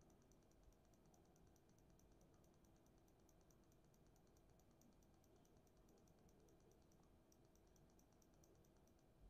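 Near silence, with a faint, even ticking of about five ticks a second that breaks off briefly a little after seven seconds in.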